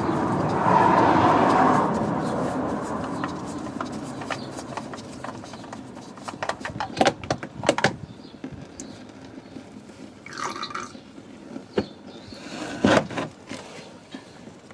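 Old engine oil draining from the car into a drain pan, a steady pour that tapers off over the first few seconds, followed by scattered clicks and knocks of parts and tools being handled.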